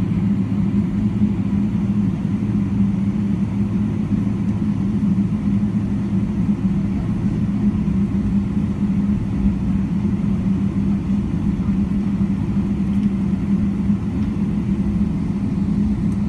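Steady low cabin rumble of a jet airliner taxiing, with a constant low hum throughout.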